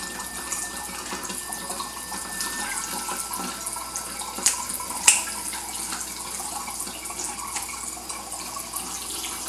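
Tap water running steadily and splashing into a sink over a whole fish. Two sharp snips come about halfway through as kitchen scissors cut through the fish's gill.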